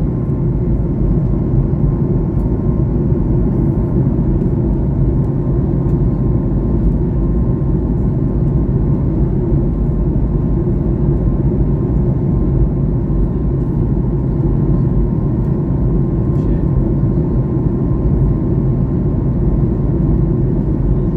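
Steady drone of an aircraft in flight heard from inside the cabin: engine and airflow noise, deep and unchanging, with a faint steady hum higher up.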